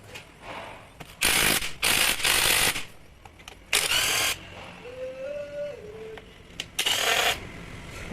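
A power tool run in about five short, loud bursts of around half a second each, with a gap of a couple of seconds before the last one.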